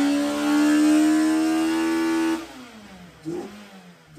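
A car engine revving high, its pitch creeping slowly upward; about two and a half seconds in the throttle closes and the revs fall away.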